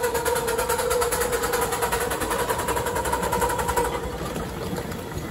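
Miniature railway train running past, a small locomotive pulling passenger carriages: a fast rhythmic clatter with a steady whining tone, both fading about four seconds in.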